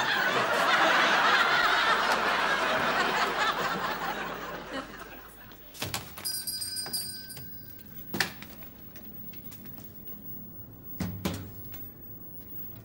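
Studio audience laughing, fading away over about five seconds. Then a click and a shop-door bell jingling briefly, followed by two separate knocks.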